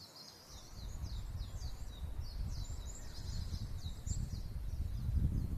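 Small wild birds calling, a busy run of short, quick high chirps overlapping one another. Under them a low rumble comes in about half a second in and is the loudest sound.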